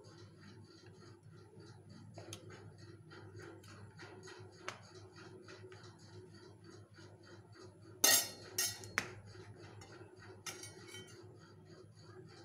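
Kitchen knife cutting white chocolate fudge on a plastic chopping board: quiet taps and scrapes, with a sharp clatter on the board about eight seconds in followed by two more knocks. A faint steady ticking runs underneath.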